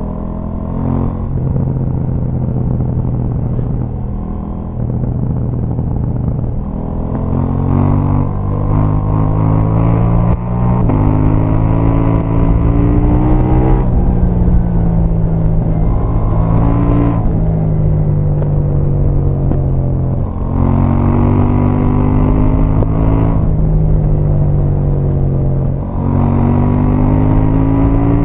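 KTM 790 Duke's 799 cc parallel-twin engine through its stock exhaust, the revs climbing and falling back several times, with sharp pops and crackles from the exhaust as the revs drop.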